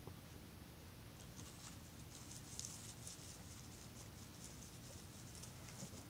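Faint, quick, irregular crunching of a deer feeding.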